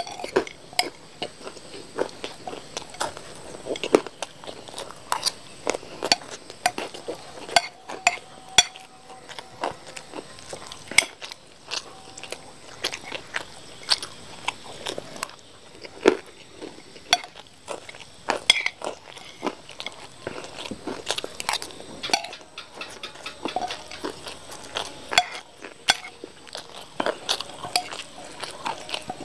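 Metal spoon clinking and scraping on a plate while scooping fried rice, mixed with close-up chewing and crunching of crisp tiktak snack balls, as many short, sharp clicks.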